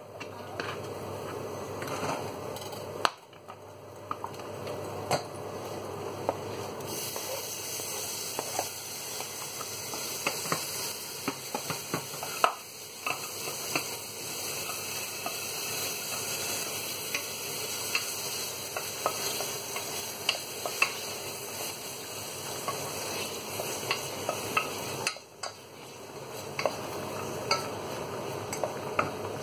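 Chopped tomatoes and garlic sizzling in oil in a stainless steel saucepan while being stirred, the wooden spoon clicking and scraping against the pan. The sizzle strengthens about seven seconds in and eases near the end.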